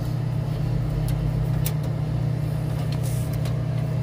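Steady low mechanical hum, with a few light clicks from hands working inside the machine.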